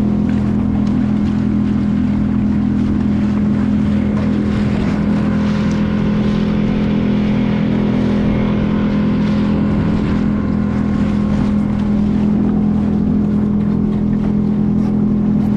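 Small boat motor running at a steady speed, a constant even-pitched drone with no change in revs.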